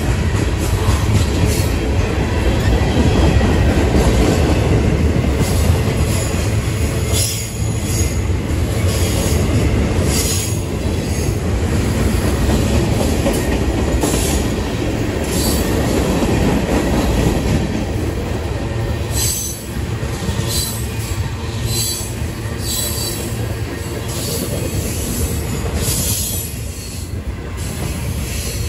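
Freight cars of a mixed manifest train (boxcars, tank cars and gondolas) rolling steadily past close by. A heavy, continuous rumble of steel wheels on rail runs throughout, with repeated brief high-pitched wheel squeals and screeches on top.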